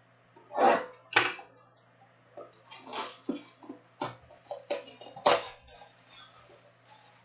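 Clear plastic shrink-wrap crackling and tearing as it is ripped off a cardboard trading-card box and crumpled by hand. It comes as a series of short, sharp rips, the loudest near the start and again about five seconds in.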